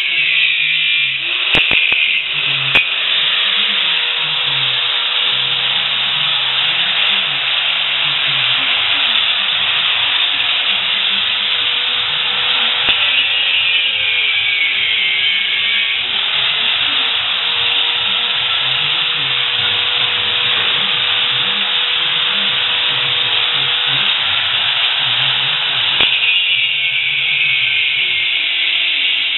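Angle grinder cutting into a steel bicycle frame: a steady harsh grinding hiss over the motor's whine, which dips in pitch under load about halfway through and again near the end.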